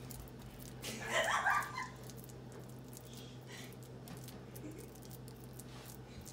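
A silicone spatula spreading and scraping thick ricotta-and-chicken filling in a foil pan: soft, faint squishing and scraping over a steady low hum. About a second in there is a brief, louder burst of sound lasting under a second.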